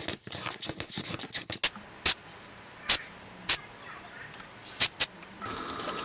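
Sandpaper rubbing rapidly over a small cast resin switch cap, a dense scratchy sound, removing the silicone release agent before painting. The sanding stops about a second and a half in. Several sharp single clicks follow, and a faint steady tone comes in near the end.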